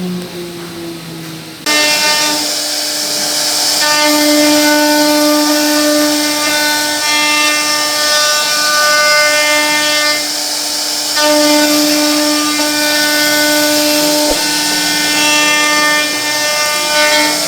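CNC router spindle whining at a steady high speed while its bit cuts into a wooden board, the hiss of cutting swelling and easing as the load changes. It starts abruptly about a second and a half in, after a short intro sound of slowly falling tones.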